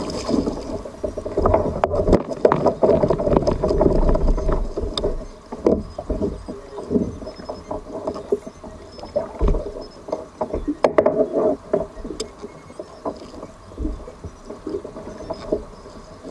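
Water sloshing and splashing around a sea kayak, with many short knocks and clatters on the hull scattered throughout.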